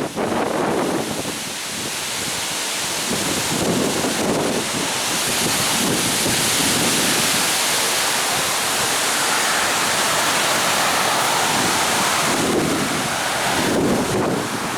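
Heavy storm winds of 55 mph or more with driving rain, a steady roaring hiss that builds about two seconds in, with gusts buffeting the microphone.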